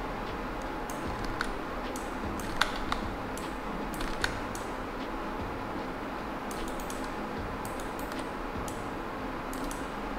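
Scattered clicks of a computer mouse and keyboard during work at a desk, a few sharper ones in the first half and small clusters near the end, over a steady low hiss.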